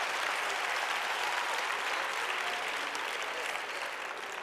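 A large indoor congregation applauding, a steady patter of many hands clapping that fades slowly toward the end.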